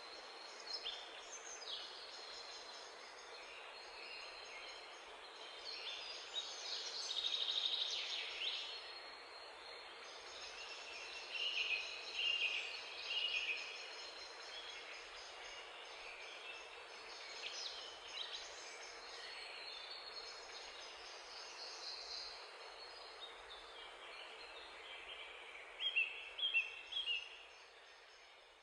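Several songbirds singing and calling over a steady background hiss. The loudest are a sweeping phrase about seven seconds in and three sharp notes near the end.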